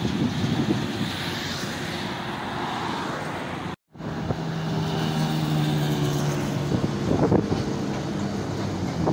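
Highway traffic noise: a steady rush of tyres and wind from vehicles on the road. After a brief cut about four seconds in, a heavy truck's engine drones with a steady low hum for a few seconds. A vehicle then rushes past shortly before the end.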